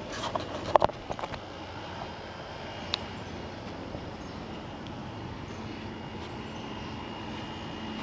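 Handheld camera being handled: a few sharp knocks and rubs in the first second or so, then steady outdoor background noise.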